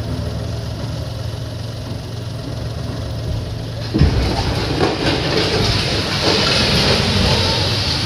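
A low steady engine hum, then about halfway through a sudden loud crack as the concrete water tower starts to give way. It is followed by continuous rumbling and crackling of breaking concrete as the tank topples.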